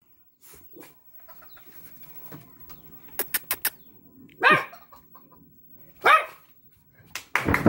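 A dog barks twice, about a second and a half apart, each bark short and dropping in pitch. A quick run of four sharp clicks comes just before the first bark.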